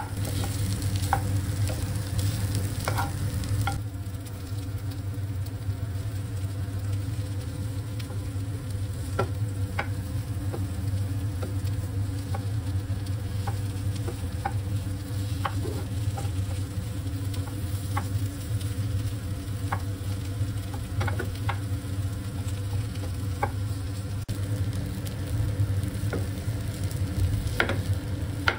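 Boiled potatoes and sautéed vegetables frying in a non-stick pan while a spatula stirs and mashes them, with a light sizzle and scattered taps and scrapes of the spatula on the pan. A steady low hum runs underneath.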